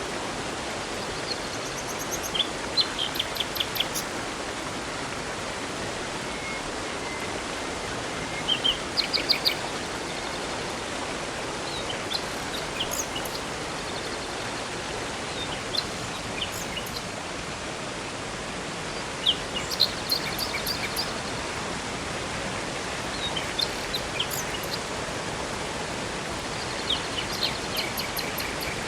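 Steady rushing of a river and waterfall, with songbirds chirping and trilling in short bursts every few seconds over it.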